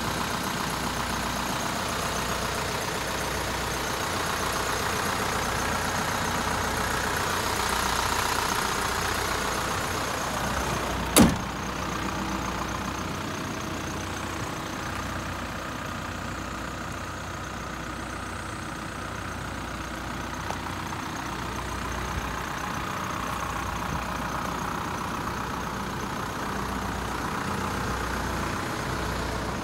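Mitsubishi Rosa bus's 4M51 four-cylinder diesel engine idling steadily, with one sharp knock about eleven seconds in.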